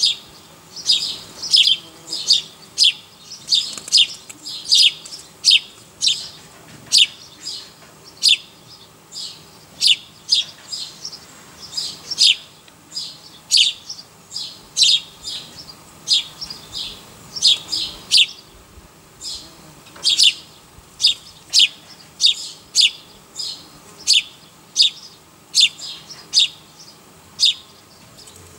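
A small bird chirping over and over: short, high, downward-slurred chirps about one to two a second, at an uneven pace and sometimes in quick pairs.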